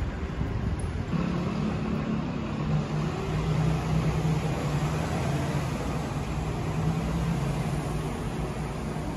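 Street traffic: a nearby motor vehicle's engine hums steadily from about a second in, dropping a little in pitch soon after, over continuous road noise.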